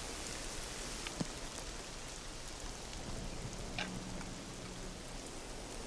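Steady hiss of falling wet snow and rain, with a couple of faint clicks.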